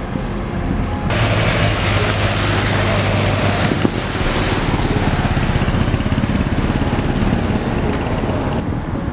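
Wind rushing over the microphone with motor vehicle and road noise underneath. The rush starts abruptly about a second in and cuts off near the end, with a low engine hum in the first few seconds.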